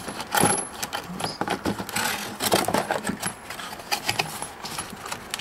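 Cardboard packaging rustling, with irregular clicks and light clinks of small metal fittings as a welding gas regulator is handled and unpacked.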